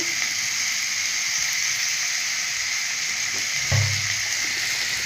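Shredded potato frying in oil in a metal wok, a steady sizzle, with a single knock about three and a half seconds in.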